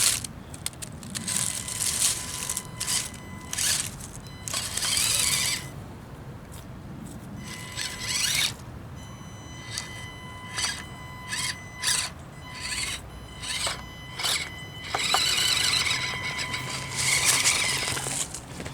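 Axial SCX24 micro crawler's small brushed electric motor and gears whining with a thin steady high pitch as it drives, broken by repeated bursts of crunching and rustling from dry leaves under its tyres.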